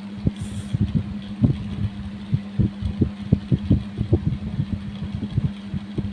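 Kerokan: a coin scraped repeatedly down the skin of the chest, short strokes about four or five a second, over a steady low hum.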